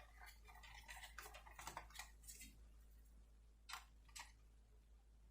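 Faint, scattered light clicks and taps of small parts of a diecast model car being handled during reassembly, with two sharper clicks a little before the end.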